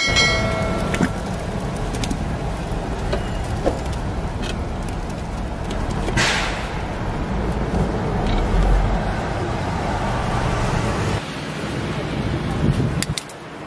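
Steady low rumble of street traffic and stall equipment, with a brief rush of liquid being poured about six seconds in.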